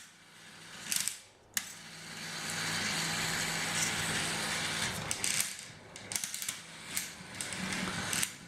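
Lego 9-volt electric motor running through plastic gears for about three seconds, driving the slide that separates a cup, with sharp plastic clicks before it starts and a run of irregular clicks and knocks after it stops.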